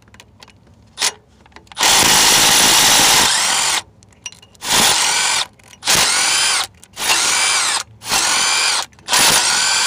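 Cordless impact driver with a 13 mm socket backing out the crank pulley bolts on a 5.2L V8. One longer burst comes about two seconds in, then five short bursts, each rising and falling in pitch as the motor spins up and winds down.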